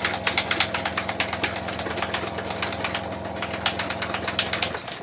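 Small electric air compressor feeding the airbrush, running with a steady hum and a fast clicking, then cutting out just before the end.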